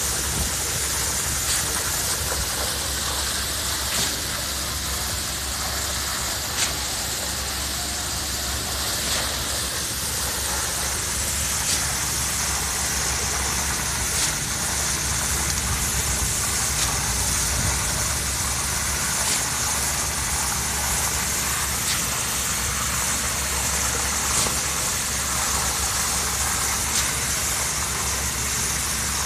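Concrete pump running, its engine a steady drone, with a short sharp knock about every two and a half seconds.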